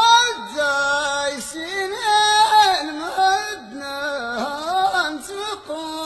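A single voice sings an ornamented verse in the style of a traditional Amazigh poet's sung improvisation (Ahwach poetry), with wide sliding and wavering pitch and no accompaniment.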